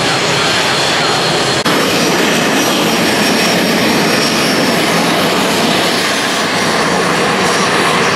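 Northrop F-5E's twin General Electric J85 turbojets running at taxi power: a steady jet noise with a high whine on top. A short click and a small jump in the sound come about one and a half seconds in.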